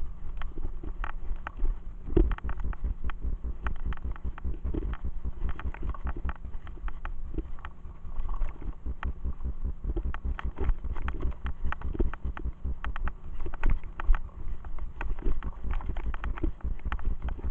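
Mountain bike ridden fast over a bumpy dirt forest track: a continuous dense rattle and clatter of the bike and tyres jolting over the ground, over a low wind rumble on the microphone.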